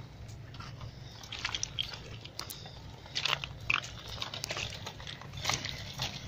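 RC amphibious monster truck driving over wet river pebbles, its tyres crunching and clattering irregularly on the stones, over a steady low hum.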